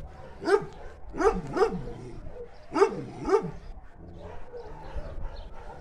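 A dog barking: five barks in about three seconds, the last four in quick pairs, each dropping in pitch, then quieter.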